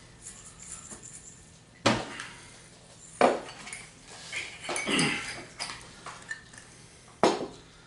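Dishes and cutlery clinking and knocking on a table, with four sharper knocks a second or two apart.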